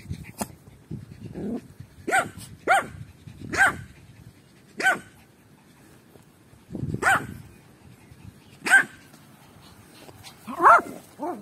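A puppy barking in short, high-pitched yaps, about eight of them at irregular intervals, the last two close together.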